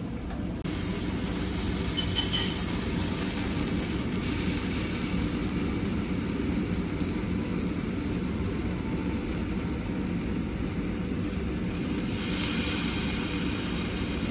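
A steady low rumble with a hiss above it, growing a little stronger about two seconds in and again near the end.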